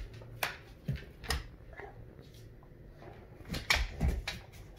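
Two big dogs scuffling over a tug toy on a hardwood floor: scattered clicks of claws and paws on the boards, with a few low knocks, bunched most thickly near the end.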